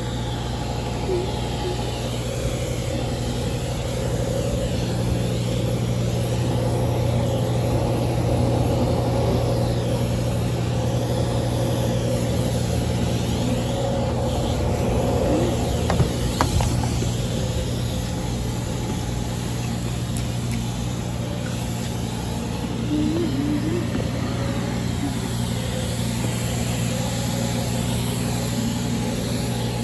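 Steady hum of a self-service car wash vacuum machine running, with a knock about sixteen seconds in.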